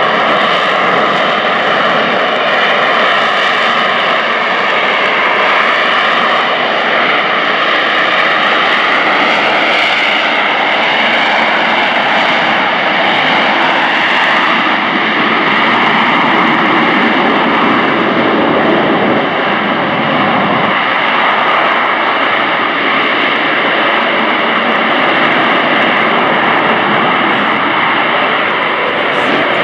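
AV-8B Harrier II's Rolls-Royce Pegasus turbofan running at high power: a loud, steady jet roar with a high-pitched whine of several steady tones on top.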